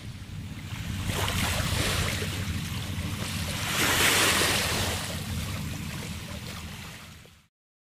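Small waves washing up onto a sandy, rocky shore, swelling twice and loudest about four seconds in, with wind rumbling on the microphone. The sound fades in at the start, fades down and cuts off shortly before the end.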